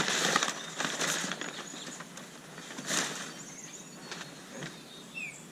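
Crinkle-paper packing rustling and crackling as it is handled, loudest in the first second, with a brief louder rustle about three seconds in, then dying down.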